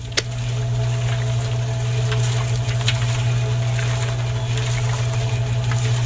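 Small electric motor of a miniature homemade concrete mixer, switched on with a click and then running with a steady hum.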